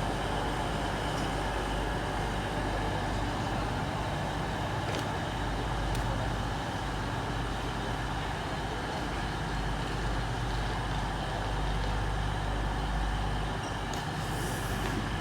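Steady hum of an East Midlands Railway Class 360 electric multiple unit standing at the platform, its onboard equipment running, under the general background noise of a large station.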